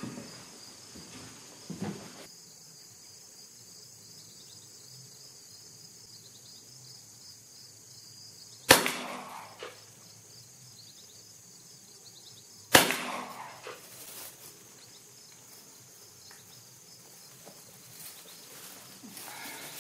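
Two shotgun shots about four seconds apart, each a sharp bang with a short echoing tail, from a Fabarm shotgun fitted with a 9/10 (full) choke tube. A faint steady high hiss lies underneath.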